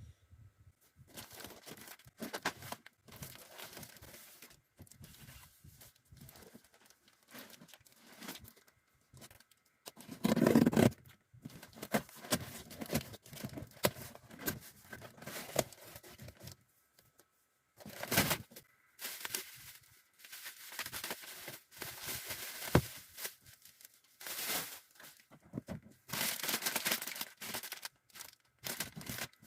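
Packaging being handled: irregular crinkling and tearing, with several louder rips.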